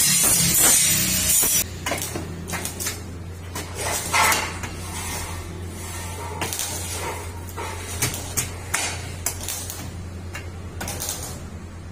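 Lengths of square steel tubing being handled and set down on a wooden workbench: scattered metallic clinks and knocks over a steady low hum. A loud noise cuts off about a second and a half in.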